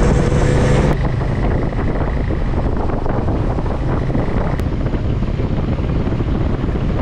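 KTM 390 Adventure motorcycle engine running steadily under way, with wind buffeting the microphone.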